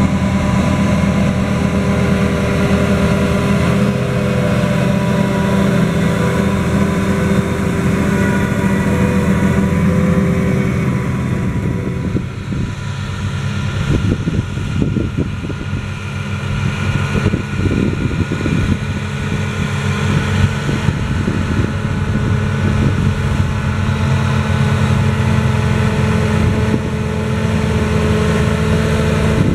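John Deere 7280R tractor's six-cylinder diesel engine running steadily under load while pushing a laser-controlled levelling blade full of soil. The engine sound drops and turns rougher about twelve seconds in, then comes back to full strength for the last several seconds.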